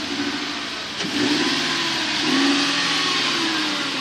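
Volkswagen Touareg engine being revved with the driver's door open, swelling to a peak about two and a half seconds in and then falling back.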